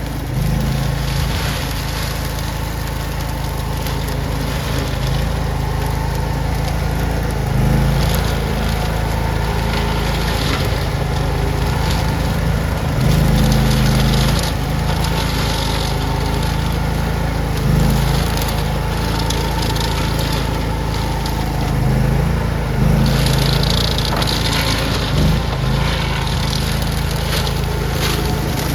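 Engine of an LX460 Chinese mini skid steer running steadily, its note swelling briefly every few seconds as the machine works, with a harsher hissing noise over it near the end.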